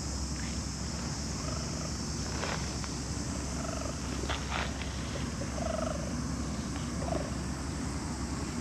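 Cat purring as it is stroked, over a steady high hiss and low rumble, with a few faint short chirps.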